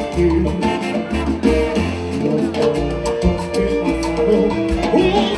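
Cuban timba band playing salsa live through the venue's sound system, with a repeating bass line under percussion and pitched instrument lines.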